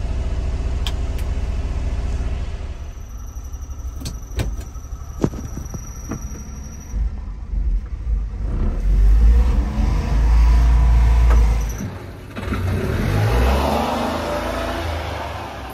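Small kei-truck engine idling steadily, heard from inside the cab, with a few sharp clicks a few seconds in. Outdoors after that, a loud low rumble, typical of wind on the microphone, and a broad hiss.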